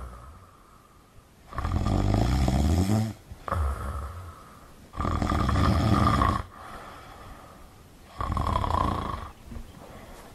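A man snoring: three long snores about three seconds apart, with a shorter one just after the first.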